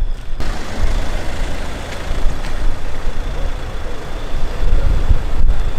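Cars in a slow-moving convoy, engines running and tyres rolling: a steady noisy rumble that grows louder about half a second in.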